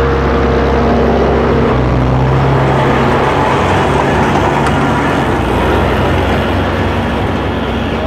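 John Deere tractor engine running steadily under load as it pulls a John Deere F441M round baler through a hay windrow, with the baler's pickup and rotor working in the noise. The sound eases slightly toward the end as the outfit moves away.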